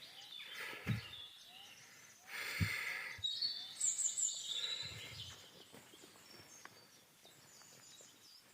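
Faint outdoor ambience on a mountain trail: a few dull low thumps, a brief rush of noise between two and three seconds in, and a short high chirping call about four seconds in.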